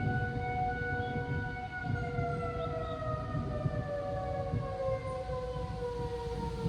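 Outdoor civil defense warning siren sounding, several tones together sliding slowly and steadily down in pitch, over a low rumbling noise.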